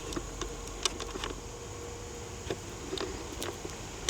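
A few light, scattered clicks and taps over a faint steady hum: handling noise from a handheld camera.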